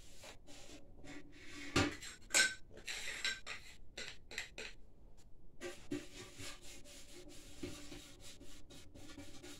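Paint being brushed onto the inside of a Triumph motorcycle's metal fuel tank: scratchy rubbing strokes with many small clinks and ticks, and two louder knocks about two seconds in.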